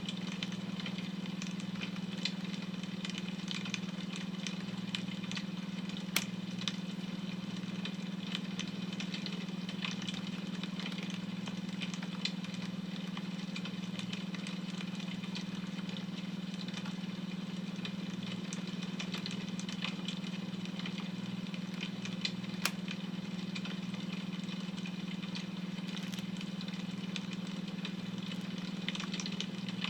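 Wood fire crackling, with occasional sharp pops, over a steady low beta-wave tone.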